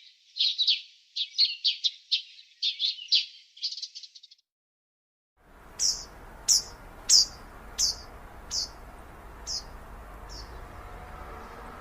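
Small birds chirping in quick, busy runs, then cut off, followed after a second's gap by single chirps sliding down in pitch, about one every half to one second, growing fainter, over a steady background hiss.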